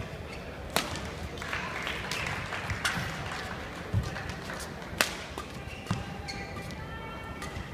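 Badminton rally: sharp racket strikes on the shuttlecock, about five of them roughly a second apart, over a low murmur of voices in the hall.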